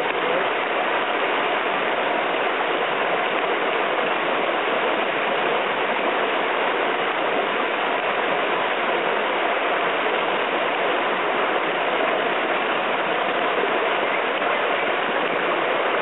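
Steady, loud rush of river whitewater churning through a standing wave right beside the microphone.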